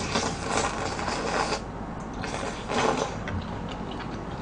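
Slurping a mouthful of boiled instant cup noodles: two long slurps, the second starting about two seconds in and shorter than the first.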